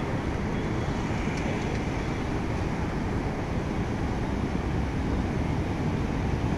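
Water rushing steadily through the sluice gates of a river barrage.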